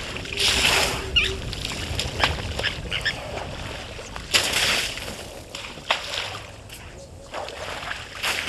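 African elephant splashing water with its trunk, spraying it back onto a shallow pool in bursts about half a second in, around four seconds in and near the end, with dripping and small splashes between.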